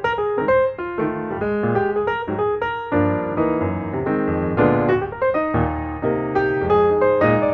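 Background music: a piano playing a flowing run of notes, several struck each second, with chords sounding together.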